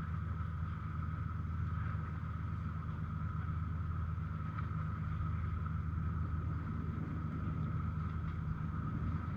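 A steady low engine drone with a constant higher hum over it, unchanging throughout.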